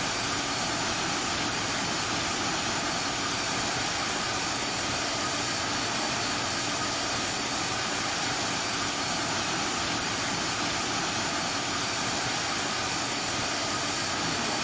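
Airliner engines running at takeoff power, a loud, steady noise with faint whining tones that neither rises nor falls.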